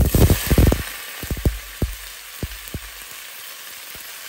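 Sliced potatoes, onions, tomatoes and dried chillies are tipped into hot oil in an enamel pot. Sizzling breaks out with a clatter of pieces landing in the first second. A steady frying hiss follows, with a few single knocks.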